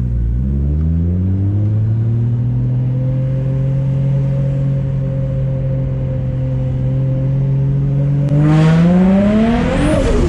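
Nissan RB25DET turbocharged straight-six in a Skyline R33 pulling through the revs, then holding a steady cruise. About eight seconds in, the revs climb quickly under throttle, and they drop sharply near the end as the throttle is lifted.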